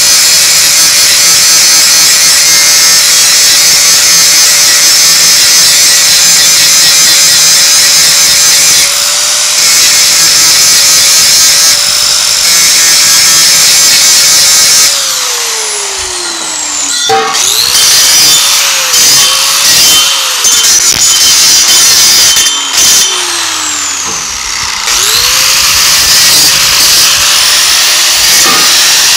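Angle grinder with a flap disc scrubbing the outside coating, which he takes for aluminum, off the end of a pipe. It runs steadily at first, then spins down about halfway through. Short bursts of grinding follow, and it spins down again before starting back up near the end.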